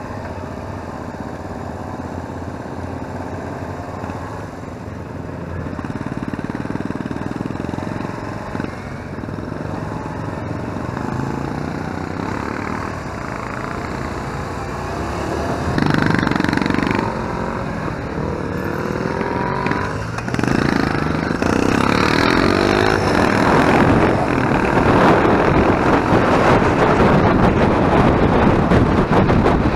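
Motorcycle engine heard from the rider's own bike as it pulls away and accelerates. The revs rise and drop back several times as it shifts up through the gears, and wind noise grows louder as speed builds.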